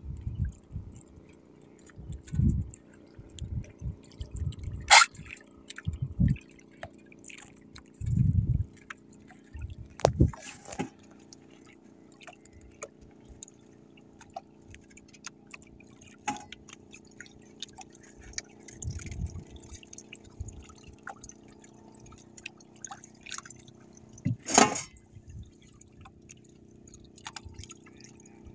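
Sea water lapping and splashing against the hull of a small outrigger boat, with irregular low thuds and a few sharp knocks, the loudest near the end.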